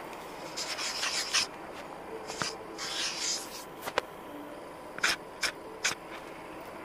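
Handling noise from a hand rubbing and brushing against the camera, in short scratchy bursts, with a sharp click about four seconds in.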